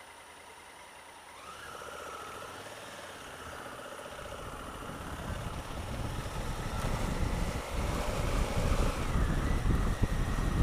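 Honda Africa Twin CRF1000L's parallel-twin engine pulling away, its pitch rising about a second and a half in, with wind rushing over the microphone and growing steadily louder as the bike gains speed.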